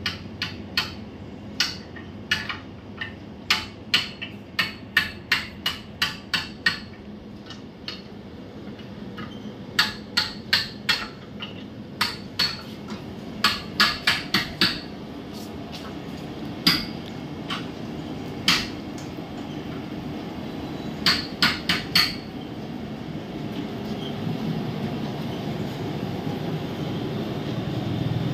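Sharp knocks in irregular runs of about two a second with pauses between, ending about three-quarters of the way through. A low rumble grows louder toward the end.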